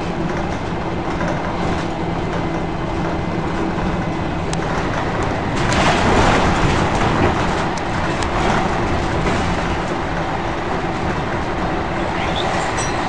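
Scania L113CRL bus heard from inside the saloon: its 11-litre six-cylinder diesel engine running steadily, with the body and fittings rattling. The noise swells for a moment about six seconds in.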